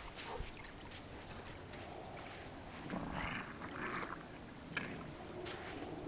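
Faint lake water lapping at the shore, with two short breathy bursts about three and four seconds in.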